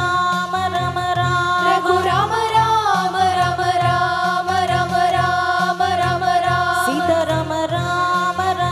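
Women singing a Hindu devotional bhajan through microphones with hand-drum accompaniment. The voices hold long notes and slide up in pitch about two seconds in and again near the end, over a steady drum rhythm.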